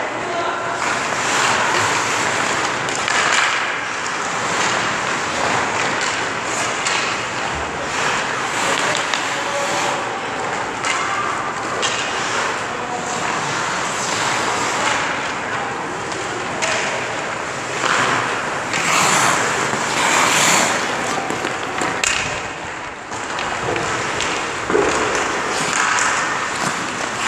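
Hockey skate blades scraping and carving on ice, mixed with hockey sticks hitting pucks and pucks knocking off goalie pads, in an irregular run of scrapes and knocks.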